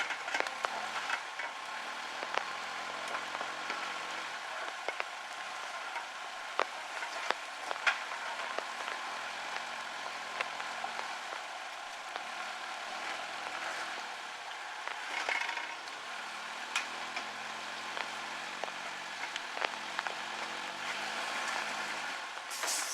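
Steady rain hissing and pattering, with scattered sharp drop clicks, over a faint low engine hum from the idling off-road vehicle.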